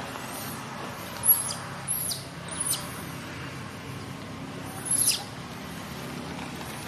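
Baby macaque giving short, high-pitched squealing cries: three in quick succession a little over a second in, the first the loudest, then one more about five seconds in.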